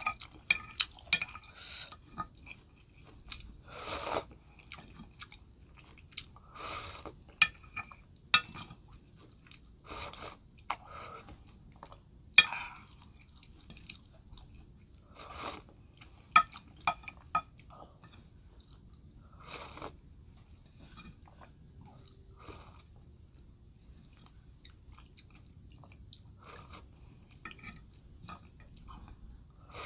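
Close-miked chewing and wet mouth sounds from eating spicy jjamppong noodle soup: irregular lip smacks, clicks and soft crunches, with a louder burst every few seconds.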